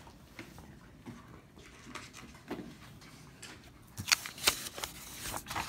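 A sheet of paper being handled on a desk: faint rustles, then a few short, sharp rustles about four seconds in and again near the end.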